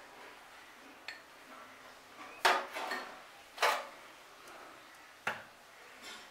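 Kitchen utensils and containers being handled: about five separate clinks and knocks, with the loudest about two and a half and three and a half seconds in.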